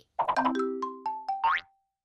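Cartoon music sound effects: a quick run of short electronic notes stepping between pitches over a couple of held low tones. It ends in a fast rising boing-like glide about a second and a half in.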